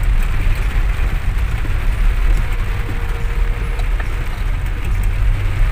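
Heavy rain falling on a car's roof and windshield, heard from inside the cabin over the steady low rumble of the car driving on a wet road.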